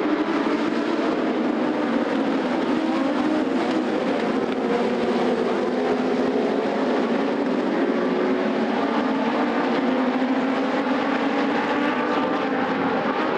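A pack of INEX Legend cars racing together, their Yamaha four-cylinder motorcycle engines running hard at high revs. Several engine pitches overlap and waver up and down as the cars work through the corners.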